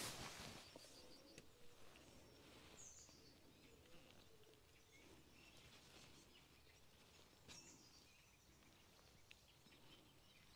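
Near silence: faint outdoor ambience with a few soft, distant bird chirps.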